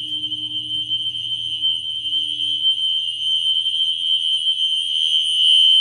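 System Sensor Spectral Alert Classic fire alarm horn strobes sounding a continuous, pretty loud, high-pitched steady tone that cuts off suddenly near the end as the power is removed.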